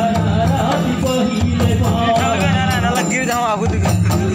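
Live Karam folk dance music: voices singing over barrel-shaped hand drums (mandar) and other percussion.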